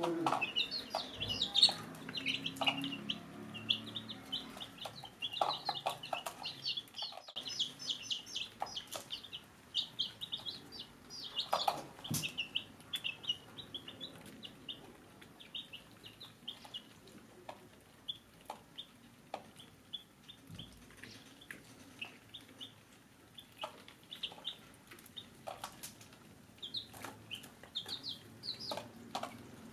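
A brood of young chicks peeping: many short, high cheeps that thin out in the middle and pick up again near the end, with scattered short taps.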